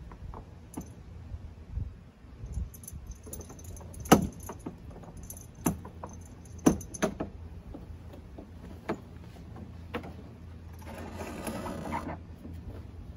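Rope and rigging hardware being handled on a canoe's leeboard rig: scattered clicks and several sharp knocks, then about a second of rope rasping near the end.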